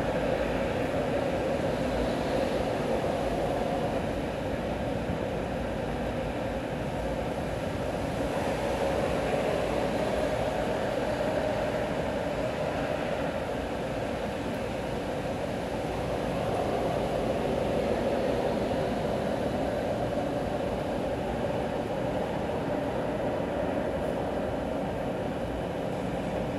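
Steady rain over a city street with a constant rumble of traffic on the wet road below, swelling and easing slowly every several seconds.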